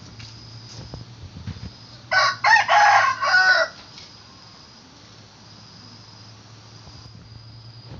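Rooster crowing once, a loud call about two seconds in that lasts about a second and a half: a short first note followed by longer drawn-out ones.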